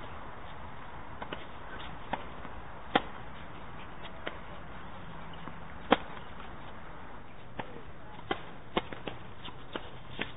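Tennis rally on a hard court: sharp pops of racket strings hitting the ball, the loudest about three and six seconds in, with fainter pops and ticks from play at the far end between them, over a steady background hiss.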